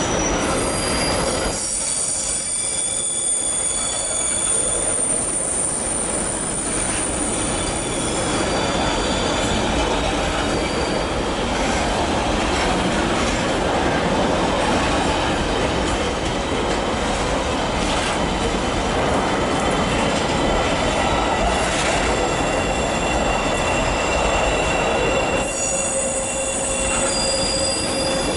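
Empty covered hopper wagons of a freight train rolling past close by: steady rumble and clatter of steel wheels on the rails, with high-pitched wheel squeal that is strongest in the first several seconds and again near the end.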